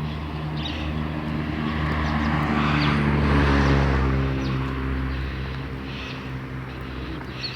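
A motor vehicle driving past: engine hum and tyre noise grow louder to a peak about three and a half seconds in, then fade away.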